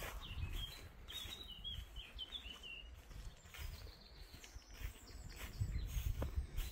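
Small birds chirping: a quick run of short chirps in the first few seconds, then a few higher, thinner notes. A low rumble comes in near the end and is the loudest sound.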